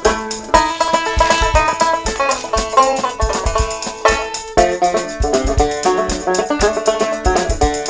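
Background music: a plucked-string tune with a banjo-like sound over a steady beat.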